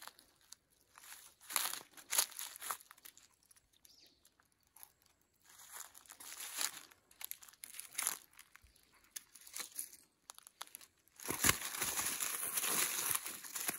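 Irregular rustling and crackling in scattered bursts, turning into a longer continuous rustle near the end.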